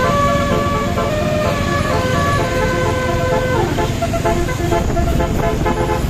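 Telolet basuri bus horn playing a tune of held notes that step up and down in pitch, turning to shorter, quicker notes a little past halfway, over the low rumble of engine and road noise.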